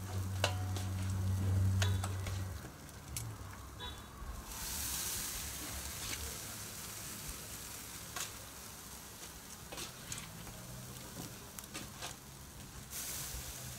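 Seasoned jerk chicken sizzling as the pieces are laid on the grate over a hot coal fire, with sharp clicks of metal tongs on the steel bowl and grill. The sizzle swells about four and a half seconds in and again near the end. A low hum runs through the first two seconds or so.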